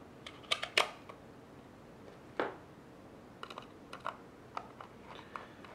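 Small plastic clicks as the battery door is fitted over AAA batteries in the back of an Aneng AN8009 handheld multimeter, with one knock about halfway, then a run of light ticks as its single retaining screw is driven in with a small screwdriver.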